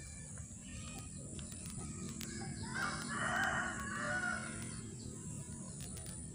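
Ayam Ketawa (Indonesian laughing chicken) rooster crowing once, about three seconds in, for under two seconds.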